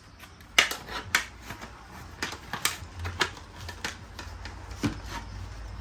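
Hard plastic fittings being handled and fitted to a portable air conditioner: a series of separate sharp clicks and knocks, the loudest about half a second in.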